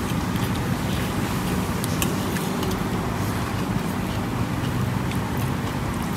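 Steady rumble of road traffic, with a few faint small clicks scattered through it.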